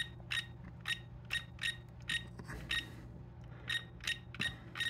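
ToolkitRC M6D charger's scroll wheel being turned notch by notch, each notch giving a short, high click-beep, about three a second, with a pause of about a second near the middle. The wheel is stepping a cell-voltage calibration value.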